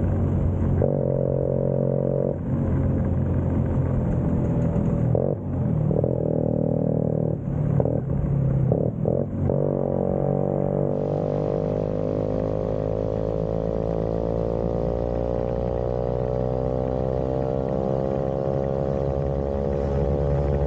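Vespa scooter engine running while riding, with several abrupt changes in pitch and tone in the first half. In the second half its pitch rises slowly and steadily as it picks up speed.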